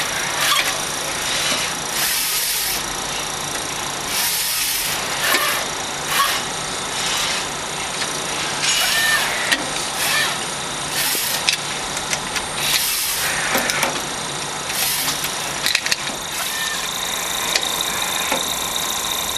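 Semi-automatic backlight module assembly machine running: short bursts of air hiss from its pneumatic actuators every couple of seconds, with sharp clicks, over a steady high machine hum.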